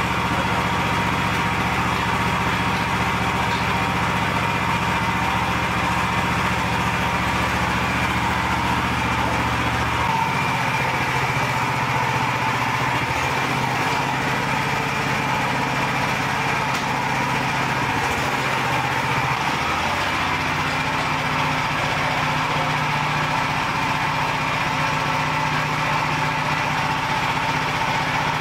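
Lifan 15 hp single-cylinder petrol engine of a homemade mini loader running steadily, its note shifting about ten seconds in and again about twenty seconds in as the loader is driven.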